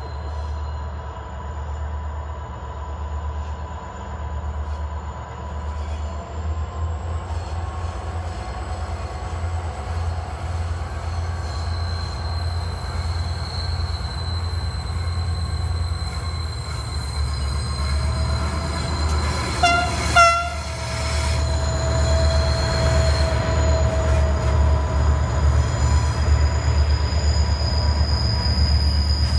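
Diesel locomotives of a freight train rumbling as they approach and pass, with two short horn blasts about two-thirds of the way in. A steady high-pitched wheel squeal rises as the wagons round the curve and roll by.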